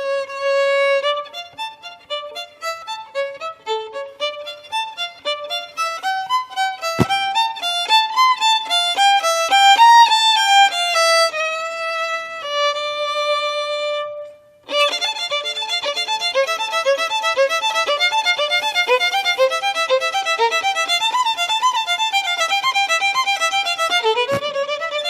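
Violin playing a melody in clear single notes. It breaks off for a moment about halfway through, then a new passage begins.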